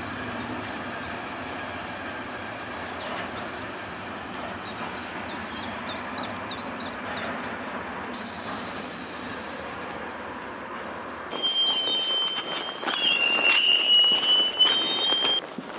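Intermodal freight train rolling along the rails with a steady rumble and light clicks. About eight seconds in, a steady high-pitched wheel squeal starts. From about eleven seconds in, louder wavering wheel squeals take over.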